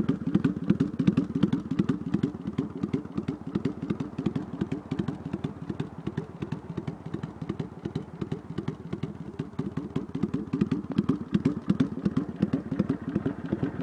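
Kawasaki Vulcan 800's V-twin engine idling steadily, its exhaust giving a quick, even train of low pulses.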